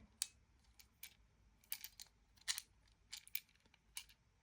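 Small irregular clicks and taps from a weapon-light's quick-detach M-LOK mount being handled, about a dozen light clicks spread unevenly.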